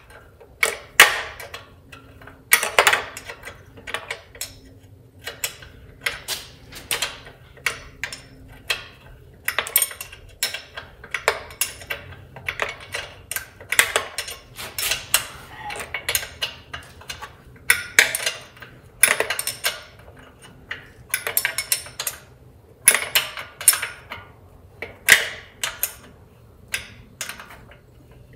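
Hand ratchet clicking in short runs, with light metallic taps, as a bolt is turned on an air-cooled VW engine's sheet-metal tinware.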